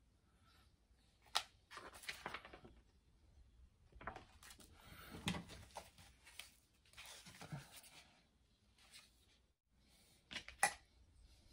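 Hands handling a coin and tools on a wooden workbench: a few sharp clicks and taps, with rustling and scraping sounds between them. The loudest taps come about a second in and twice near the end.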